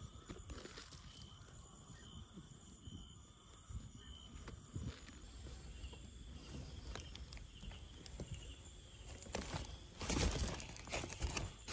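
Footsteps and rustling outdoors, with a faint short high chirp repeating about once a second in the first half; the rustling gets louder near the end.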